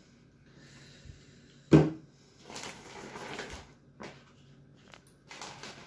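A single heavy thump about two seconds in as something is set down on a tiled kitchen worktop, then intermittent rustling and scraping as hemp seed is scooped from a bowl and a plastic bag is handled.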